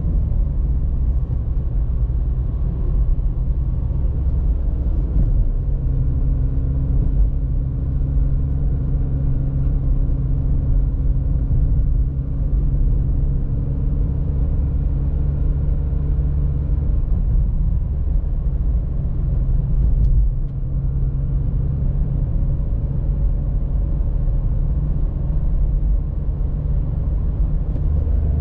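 Interior sound of a Dacia Logan TCe 100, its 1.0-litre three-cylinder turbo petrol engine running at a steady speed with low road and tyre rumble. A steady engine note holds for about ten seconds in the middle.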